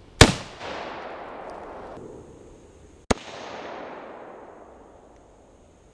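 Two sharp rifle shots from a modified SKS firing 7.62x39 steel-jacketed rounds, about three seconds apart. Each is followed by an echo that dies away over about two seconds.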